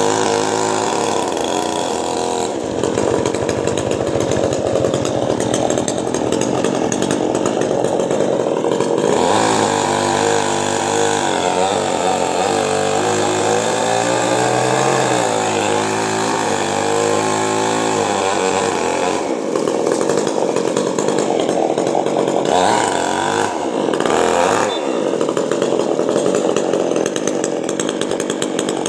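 Chainsaw cutting into a coconut palm trunk, running continuously, its engine pitch dipping and recovering again and again as the chain bites and clears.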